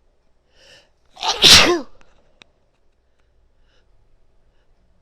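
A woman sneezing once, loudly, about a second and a half in: a short breath in, then an "achoo" whose voiced end falls in pitch.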